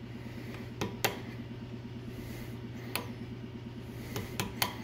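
About five sharp metallic clicks of a hand tool against a Tesla Model S Brembo brake caliper as a seized pad is worked loose, two near one second in and two close together near the end, over a steady low machine hum.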